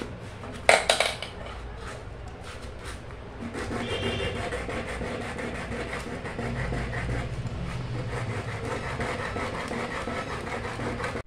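The end of a PVC pipe being rubbed on sandpaper, a steady scraping from about three and a half seconds in, to shape the pipe end. Near the start, a brief sharp clatter.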